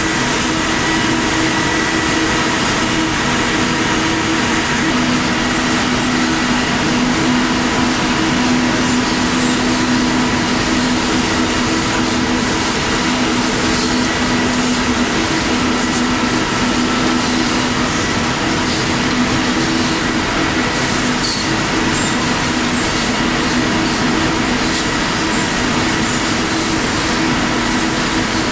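Steady running noise of a Murata QPRO link coner, an automatic yarn-winding machine fed directly from a ring spinning frame. It is a constant dense whir with a steady low hum and a few faint ticks.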